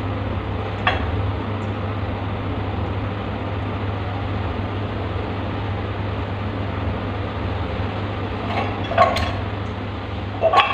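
A few light clinks and taps from hands handling a chrome P-trap pipe and its wall joint, one about a second in and two close together near the end, over a steady background hum.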